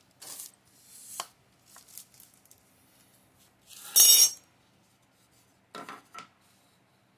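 Wooden shelf boards being handled and set down on a tile floor: scattered short scrapes and knocks, the loudest a harsh scrape about four seconds in, with two more small knocks near six seconds.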